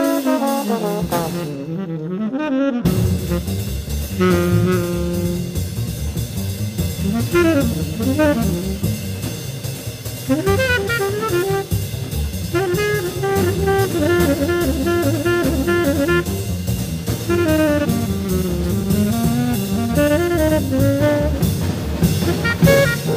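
Small-group jazz recording from 1953: a horn plays a fast solo line of quick runs over a drum kit.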